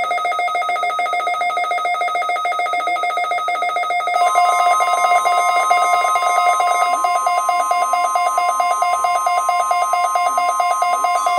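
Weather radio receiver's electronic alert alarm, a loud, rapidly pulsing ringing tone. About four seconds in, the steady 1050 Hz NOAA Weather Radio warning alarm tone joins it and carries on after the pulsing stops.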